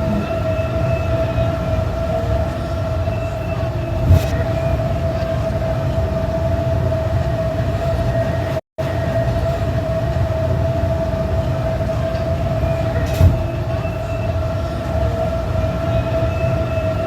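Steady machine hum: a constant whine over a low rumble, with a faint click twice and a brief dropout partway through where the sound loops.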